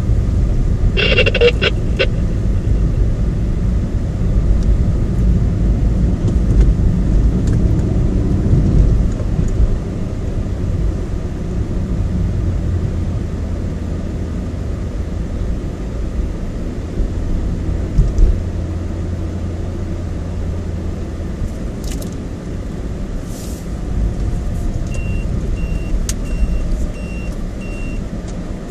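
A moving car's engine and tyre noise: a steady low rumble that eases off after about twenty seconds. Near the end comes a run of short high beeps, about two a second.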